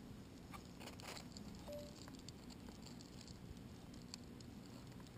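Mostly quiet, with a few faint scattered clicks and taps as graham crackers and a roasted marshmallow are handled and set down on a wooden board.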